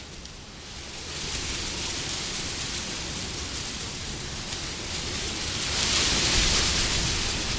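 Wind blowing in gusts: a lull at first, picking up after about a second, and swelling to its loudest gust near the end.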